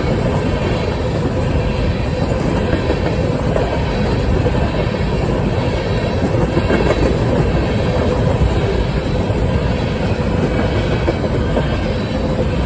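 Freight train of covered grain hopper cars rolling past, with a steady rumble of steel wheels on the rails.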